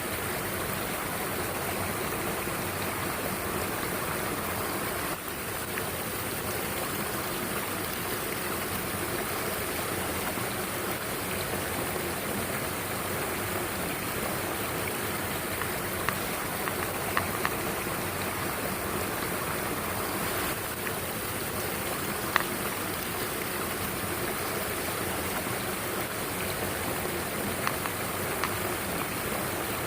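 Mountain stream water rushing steadily over rocks, with a few faint, sharp ticks scattered through it.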